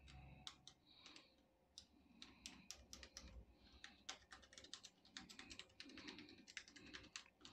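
Faint, irregular clicks and short scratches of a hand tool scraping away laptop case plastic, growing denser about two seconds in.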